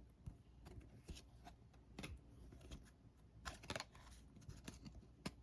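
Faint rustles and soft clicks of trading cards being flipped through by hand, scattered irregularly, with a small cluster of clicks after about three and a half seconds and a sharper click near the end.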